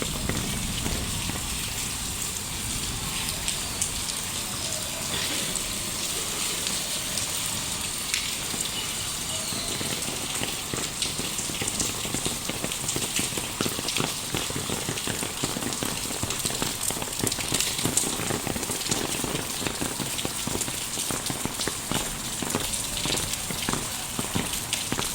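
Steady light rain falling on the street, with many small, close drop ticks over a constant hiss.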